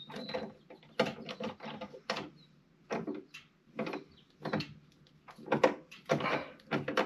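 Hand tool driving the hardware bolts of a wiper motor delete plate into the firewall: a run of irregular metallic clicks and scrapes, several a second. The threads are stiff and the bolt is being forced in.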